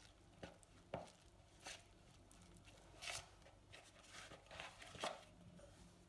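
Hands mixing and kneading flour-and-water dough, with scattered knocks and thuds of dough and hands against the bowl and marble countertop. The loudest come about a second in and about five seconds in.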